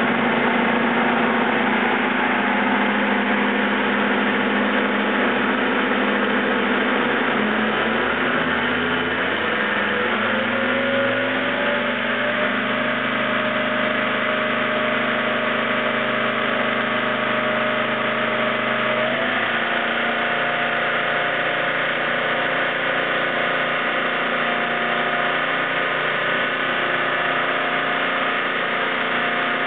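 Turbo diesel inboard engine driving a Rockhopper jet unit, running under way. About a third of the way in its pitch climbs over a few seconds as it speeds up. It then holds steady and shifts again about two-thirds through.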